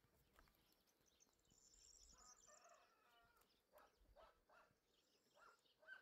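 Faint bird calls: a rapid high chirping trill in the first half, then a string of short calls in the second half.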